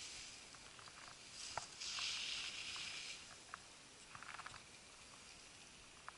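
Skis sliding and scraping over packed snow, with a hiss that swells for about a second, roughly two seconds in, as the edges bite in a turn. Scattered light clicks run through it.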